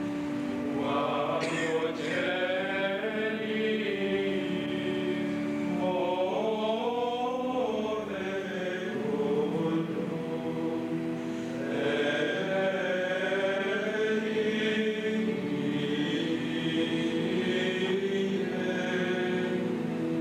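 Voices chanting plainchant: a flowing sung melody in phrases that rise and fall, over steady held low notes.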